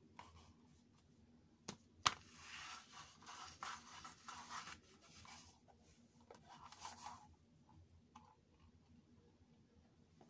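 Kate Spade pink jelly ballet flat being dangled from the toes and slipped on and off the foot. Two sharp taps a little under two seconds in are the loudest sounds. Soft scuffing and rubbing of the plastic shoe against skin and the floor follow, in two faint stretches.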